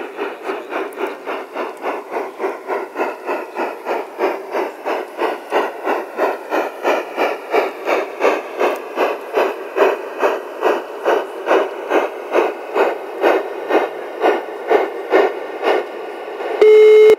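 Large-scale model Denver & Rio Grande steam locomotive chuffing steadily at about three chuffs a second as it runs, then a short whistle toot just before the end, the loudest sound.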